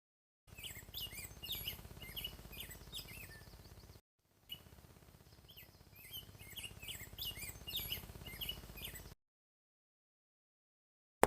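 Small birds chirping: many short calls in quick succession over a low background rumble, in two stretches broken by brief gaps of dead silence.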